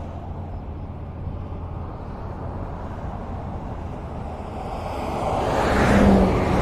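Highway traffic: a steady rumble of cars on the road. One vehicle passes close, growing louder for a couple of seconds and peaking just before the end.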